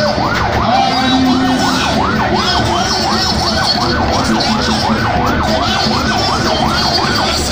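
Electronic siren in a fast yelp, its pitch rising and falling about three times a second, stopping near the end.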